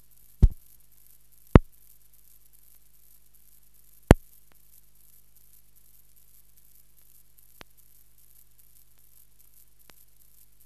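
Steady low hum and hiss of an old film soundtrack. It is broken by three sharp, loud clicks in the first four seconds and two faint ones later.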